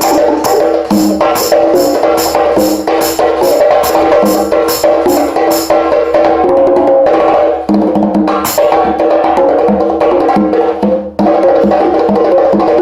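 Music with percussion: a regular wood-block-like click about three times a second over sustained pitched tones. The clicking fades out about halfway through while the pitched music carries on, with two brief breaks.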